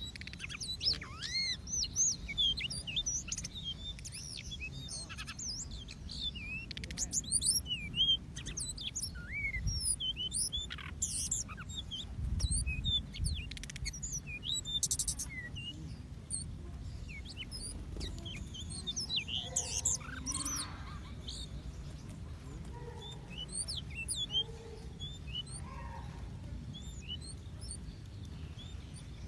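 Many small aviary birds chirping and calling over one another in quick, short, high notes, busiest in the first half and thinning out later.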